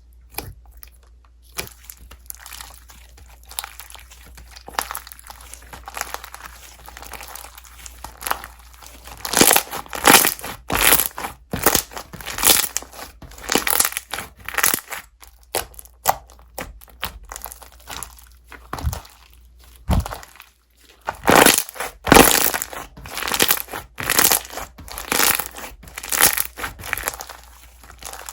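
Slime being squeezed, poked and stretched by hand, giving irregular crackling, crinkly squishes and pops. The squishes are faint at first and grow louder and more frequent about nine seconds in.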